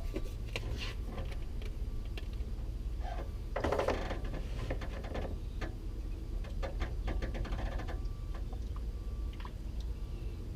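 Scattered small clicks and ticks of hand handling, with a denser run of rattling clicks about four seconds in, over a steady low hum.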